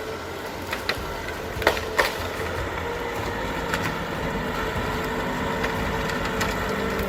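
A heavy vehicle's engine running steadily with a faint whine, slowly getting louder. A few sharp knocks come around one and two seconds in.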